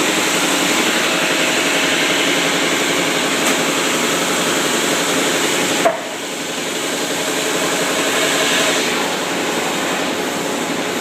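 Power sander running against a wooden deck post, a steady buzzing grind. About six seconds in there is a sharp click, and it carries on a little quieter.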